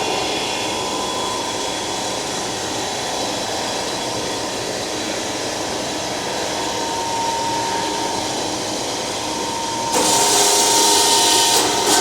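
Hydraulic forging press and forge running: a steady mechanical hum with a faint whine. About ten seconds in, a loud hiss starts, with a few clicks near the end.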